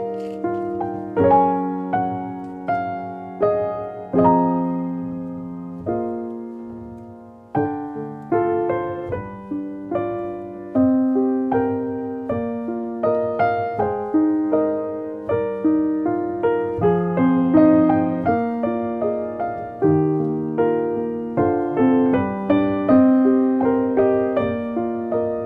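Background piano music: a gentle melody over chords, each note striking and fading, with one chord left to die away about six seconds in before the next phrase begins.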